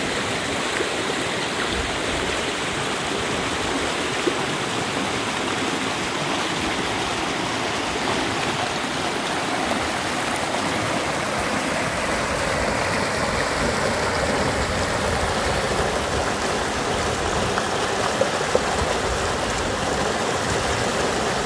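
Steady rushing of a stream's flowing water.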